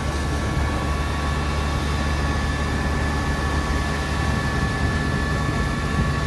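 Fire engine's engine running steadily to drive its water pump, feeding charged hoses: a heavy low drone with a steady high whine over it.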